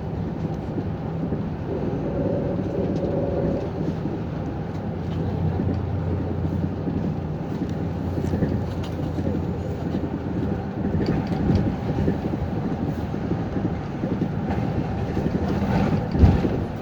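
City bus running between stops, heard inside the cabin: steady engine drone and road rumble. A sharp thump, the loudest moment, comes about a second before the end.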